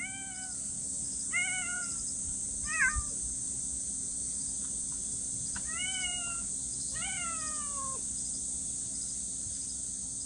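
Cats meowing: five high-pitched meows a second or more apart, the last one longer and falling in pitch. A stray kitten outside the fence and an older cat inside the yard are calling to each other.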